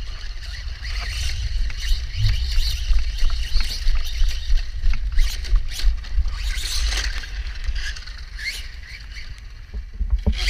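A toy RC monster truck fitted with a brushless motor being driven, its motor whining in short rising bursts over a hiss of tyre and chassis noise, with a heavy low rumble underneath.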